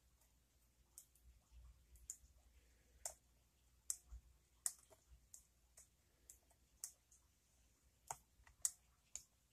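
Faint, irregular metallic clicks, one or two a second, from a lock pick working the pins of the 'Only Pins' pin-tumbler challenge lock by Fast Charlie under tension.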